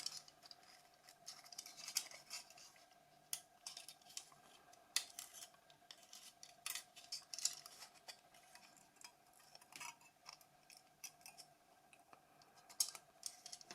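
Scattered small clicks, taps and scrapes of small hand tools and plastic and metal phone parts being handled during disassembly of a Nokia 5210, over a faint steady hum.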